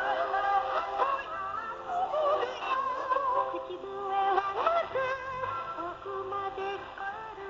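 Music with singing, received as a shortwave broadcast and played through the radio receiver.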